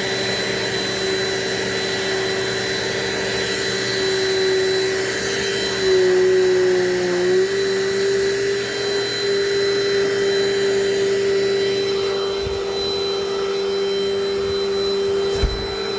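Vintage Dirt Devil Dynamite Plus vacuum cleaner running steadily with a motor whine. About six seconds in it gets louder and its pitch sags briefly, then recovers. A single short knock comes near the end.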